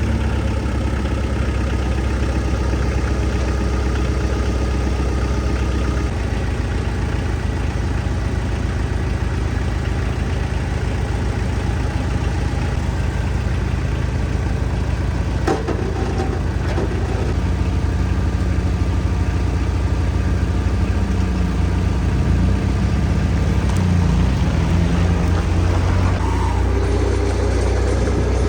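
Bobcat 743B skid steer's diesel engine running steadily just after starting, with a single sharp click about halfway and some wavering in engine pitch in the second half.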